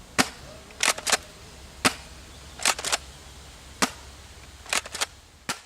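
Cyma CM.355 spring-powered airsoft pump shotgun being shot and pumped over and over. A single sharp crack alternates with a quick cluster of two or three clicks from the pump action, four cracks in all, about two seconds apart.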